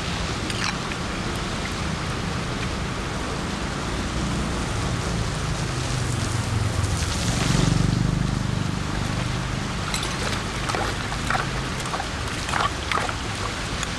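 Steady rain and running storm water, swelling briefly about halfway through. From about ten seconds in come a run of short knocks and scrapes.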